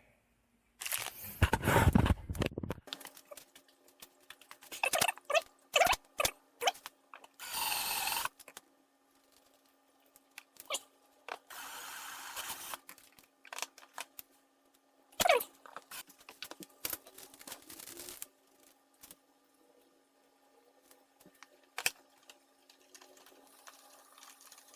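Hand work on car bumper hardware: scattered clicks and knocks of parts and tools being handled, with short runs of a power drill, one brief whine about 8 s in and a longer stretch around 12 s, as holes are drilled for the quick-release pins.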